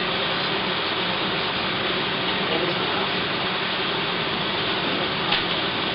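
Film projector running in a projection booth: a steady mechanical whir and chatter, with a brief click about five seconds in.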